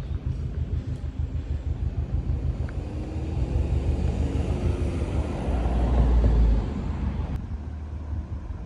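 Low rumble of a passing motor vehicle, swelling to its loudest about six seconds in and then dropping off.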